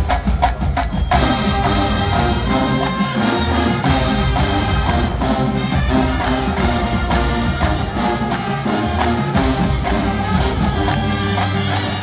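Marching band playing: brass carrying sustained chords and melody over drums and percussion.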